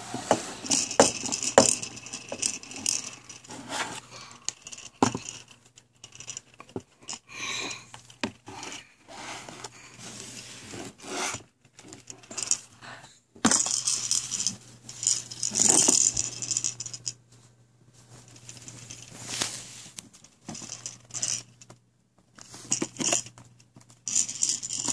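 Close-up handling noise from a baby grabbing and rubbing the camera: irregular rustling, scraping and knocking with sharper clicks, loudest in patches.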